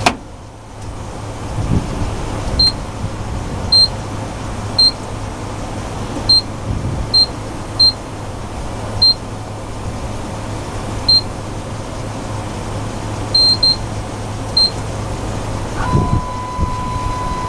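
High-security key-cutting machine running steadily as it cuts the second side of a Lexus key, with a low hum and about a dozen short, high beeps at irregular intervals. A steady tone comes in near the end.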